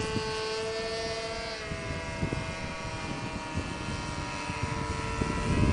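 Radio-controlled model airplane motor buzzing in flight at a fairly steady pitch, dipping slightly about two seconds in, over low wind rumble on the microphone.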